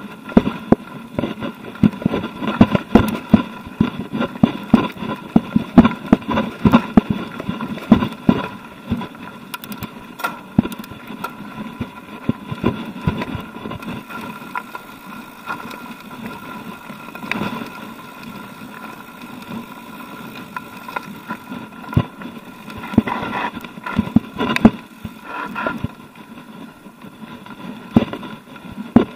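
Mountain bike rattling over a rocky dirt trail: tyres rumbling on gravel and a rapid clatter of sharp knocks from the bike jolting over stones. The knocks thin out in the middle and crowd together again a few seconds before the end.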